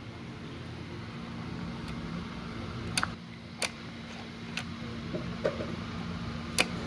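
A steady low hum with a handful of sharp clicks or taps, the loudest two near the middle and one near the end.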